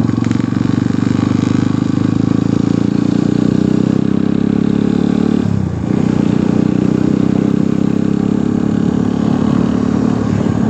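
An engine running steadily and loudly, with a brief drop in pitch and level a little past halfway before it picks up again.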